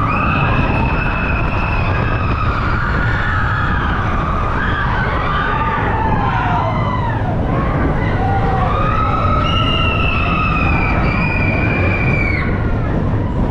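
Riders screaming on the Expedition Everest roller coaster. Several overlapping long cries rise and fall over the steady noise of the moving train and the wind.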